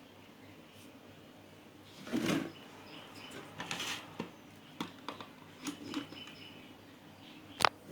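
Handling noises at a repair bench: scattered small clicks and brief rustles, with a single sharp click near the end.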